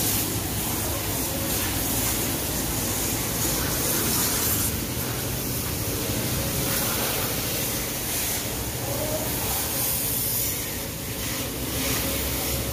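Car-wash water hoses spraying onto cars, a steady hiss with a low, steady hum underneath.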